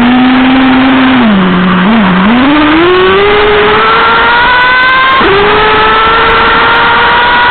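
Traxxas Revo 3.3's TRX 3.3 two-stroke nitro engine, close to the on-board camera. It runs low and steady, sags briefly lower, then revs up in a steady climb as the truck accelerates. About five seconds in the pitch drops suddenly, then climbs again. A steady hiss runs underneath.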